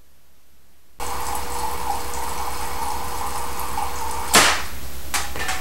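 Water streaming steadily from the Kelvin water dropper's nozzles into its cans, starting abruptly about a second in. About four seconds in, one short sharp crack stands out louder than the water, followed by a fainter click.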